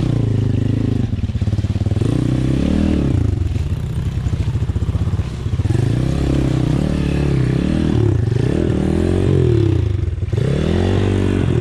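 Honda XR dirt bike's single-cylinder four-stroke engine under varying throttle on a rough trail, its pitch rising and falling several times as the rider opens and closes the throttle.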